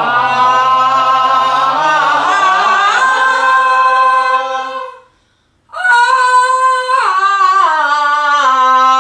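Women singing long open-throated held notes as a pansori voice-production exercise. First several voices hold a note together that rises in pitch over about five seconds. After a short breath, a single voice holds a note that steps down in pitch twice.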